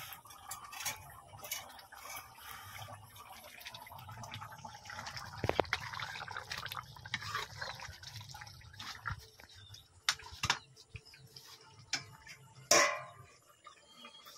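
Chicken curry simmering in an iron kadai, bubbling and popping steadily, with occasional clinks of metal utensils; the loudest is a single clank with a short ring near the end.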